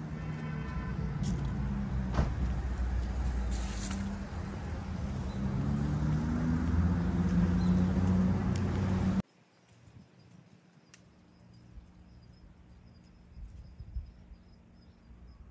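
Low, steady hum of a running vehicle engine with shifting pitch bands and a single click, cutting off abruptly about nine seconds in to a much quieter background with a faint thin high tone.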